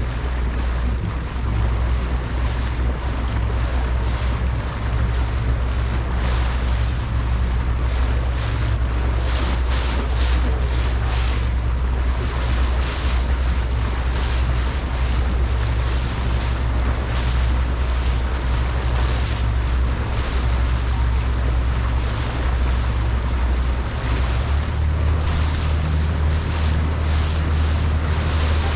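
Motorboat under way: a steady low engine drone under rushing water and wind buffeting the microphone. Near the end the engine note steps up to a higher pitch.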